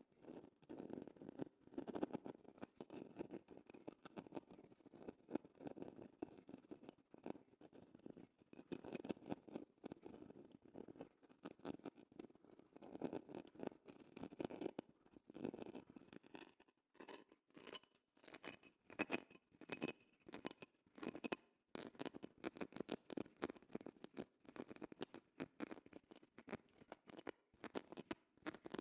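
A shell scratched and tapped close to the microphone: a dense run of quick, crackly scratches and clicks, with a couple of brief pauses partway through.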